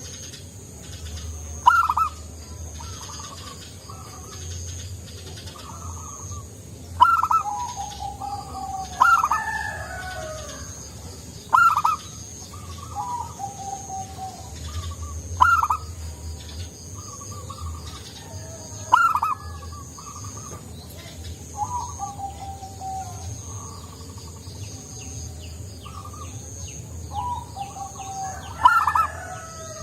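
Zebra dove (perkutut) cooing its song over and over: about seven loud, sharp notes, each trailed by a lower, falling run of softer coos.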